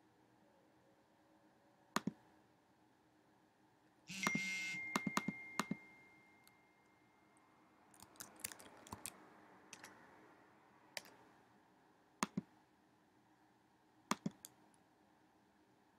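Computer mouse clicking: single and paired clicks spread through, with a busier cluster in the middle. About four seconds in, a louder sudden sound with a high ringing tone that fades away over about three seconds.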